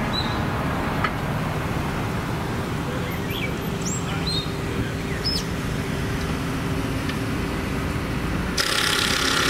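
Roadside ambience: a steady low rumble with a few short bird chirps, and a burst of hissing about eight and a half seconds in.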